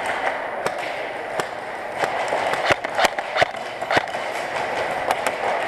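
Airsoft guns firing, with sharp, irregular cracks of shots and BB hits, a few louder ones near the middle, over a steady background hiss.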